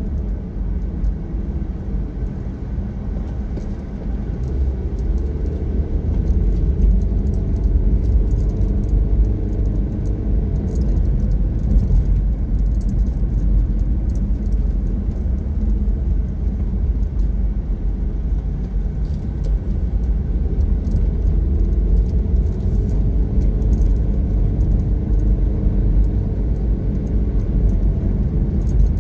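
Car driving along a road: steady low rumble of engine and tyres. The engine note rises and falls a couple of times as the speed changes.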